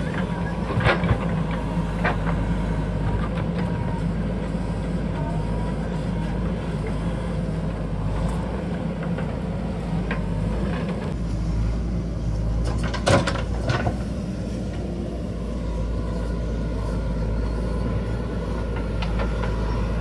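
JCB backhoe loader's diesel engine running steadily, with a few sharp knocks and clanks, the loudest about thirteen seconds in.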